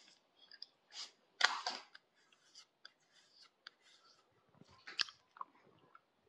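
Faint mouth noises of a person close to the microphone between sentences: scattered small lip and tongue clicks and a couple of short breaths, the strongest about a second and a half in.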